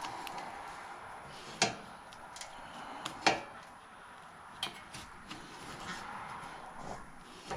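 A few sharp metallic clanks and clinks of hand tools and parts being handled during a mini bike teardown. Two louder knocks come about one and a half seconds apart, followed by lighter taps.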